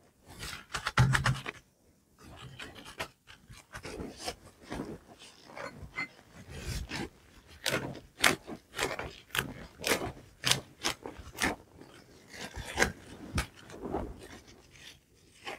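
Irregular taps, clicks and rubbing of hands and utensils working on a tabletop while sushi is prepared, with a short pause about two seconds in.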